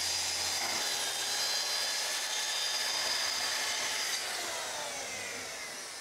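Festool track saw cutting through a sheet of plywood along its guide rail, a steady high whine of the blade in the wood. About four seconds in the cut ends and the blade's whine falls in pitch and fades as it spins down.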